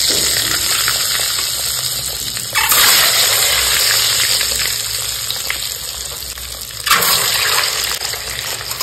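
Boiled eggs sizzling as they fry in hot oil in a kadhai. The sizzle jumps louder about two and a half seconds in and again near seven seconds as more eggs are dropped in, easing off a little after each.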